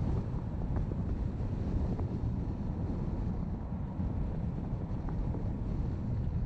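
Wind buffeting a GoPro's microphone over the low, steady rumble of a car driving, with a few faint ticks.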